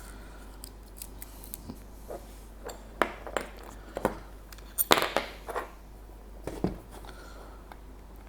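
Scattered light clicks and clacks of the parts of a self-feeding soldering gun and its solder spool holder being handled and fitted together, the sharpest knocks about five seconds in.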